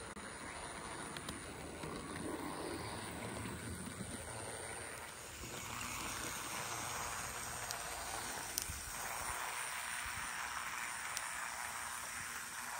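00 gauge model locomotive running along its track: a steady rushing of wheels on rail, with a few sharp clicks in the second half.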